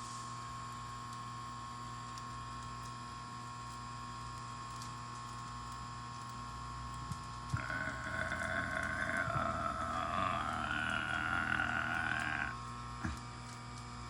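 Volcano vaporizer's air pump humming steadily as it inflates the balloon. About halfway through, a wavering high squeal joins for about five seconds, then stops suddenly, followed by a single click.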